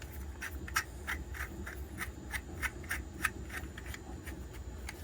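3D-printed plastic bolt being worked in and out of its threaded hole, giving a run of faint, regular clicks about three a second that stop after about three and a half seconds.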